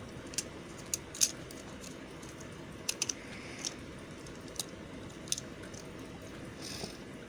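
Soft soap being handled, giving scattered sharp light clicks and taps at irregular intervals, with a short soft rustle near the end, over a steady low background hum.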